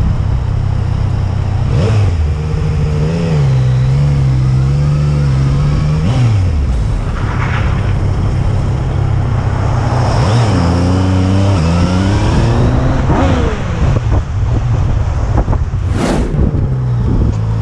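Motorcycle engine running under way, its pitch rising and falling several times as the rider accelerates, shifts and eases off. There is a brief sharp burst of noise near the end.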